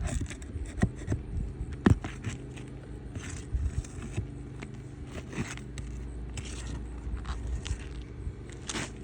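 Scattered scrapes and clicks of hand work on roof shingles as a shingle is lifted and its nails dealt with, with one sharp click about two seconds in. A low rumble comes in about six seconds in.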